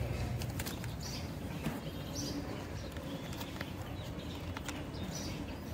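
Bird calls in the background, short and recurring, with a few light clicks of plastic toy car wheels being handled and pushed onto a metal axle.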